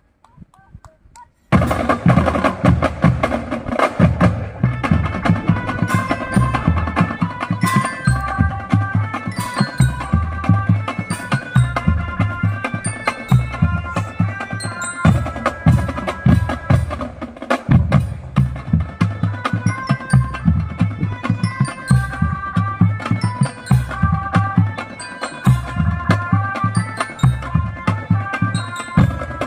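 A non-brass marching drum band playing: bass and snare drums beat a steady rhythm under a melody on bell-like mallet instruments. The music starts suddenly about a second and a half in.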